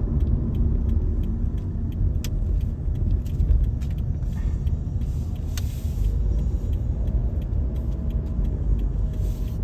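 A car driving on a road, heard from inside the cabin: a steady low rumble of tyres and engine, with scattered light clicks and rattles.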